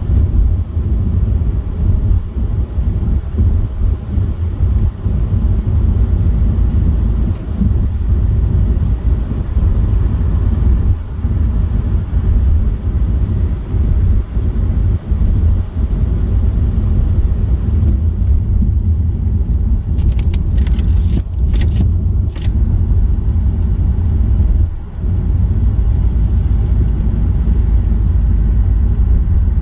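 Car driving at motorway speed on a rain-soaked road: a steady low rumble of road and tyre noise. A quick run of sharp clicks comes about twenty seconds in.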